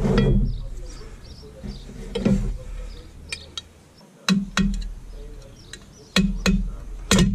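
Hammer tapping a punch against a drum-brake shoe to free the handbrake lever. Sharp metal taps come in pairs in the second half, about five in all, after a couple of duller clunks of parts on the mat.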